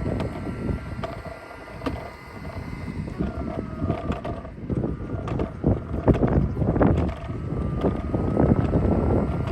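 Robot vacuum running with a steady motor whine, mixed with irregular clicks and knocks, under heavy wind buffeting on the microphone.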